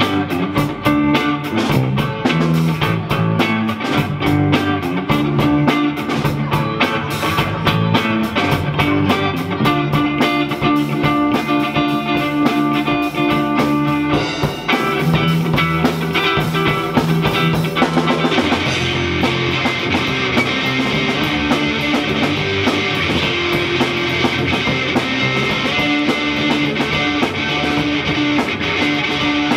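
Live rock band playing: electric bass, electric guitar through a Marshall amp, and a drum kit. The music dips briefly about halfway through, then comes back brighter and fuller for the rest.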